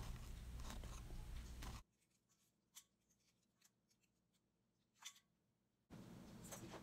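Faint crackles and clicks of a hard-boiled eggshell being cracked and peeled by hand, over low room hum that drops out for about four seconds in the middle.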